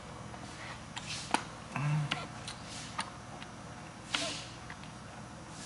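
Scattered light clicks and taps of a plastic fuel pump hanger being handled and turned over in the hands.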